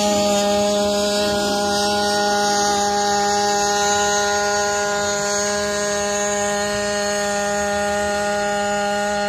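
Hybrid multirotor drone in flight, its onboard combustion engine-generator and propellers making a steady, even hum at constant speed.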